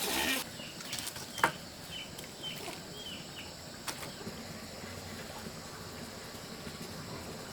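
A bird chirping: about six short, high chirps in quick succession, between two sharp clicks.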